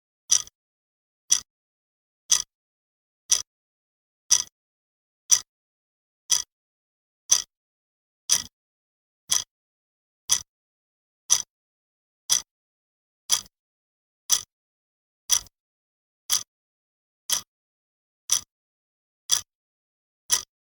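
Clock-tick sound effect, one sharp double click every second with silence between, counting off the time given to solve a problem.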